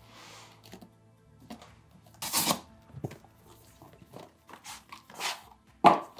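Cardboard and paper packaging being handled: rustling and scraping as a flat accessory box is slid out and opened. There is a longer scrape about two seconds in and a short knock near the end, with faint background music underneath.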